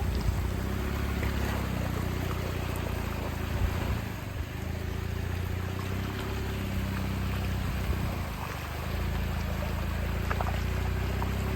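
Jeep engine running at low speed as it crawls along an off-road trail, its note easing off briefly twice.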